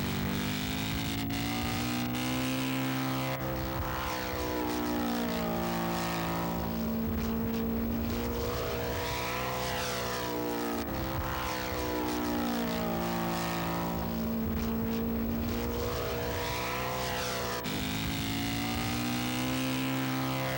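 Engines of large radio-controlled model airplanes flying past, the propeller drone rising and falling in pitch with each pass, several times over.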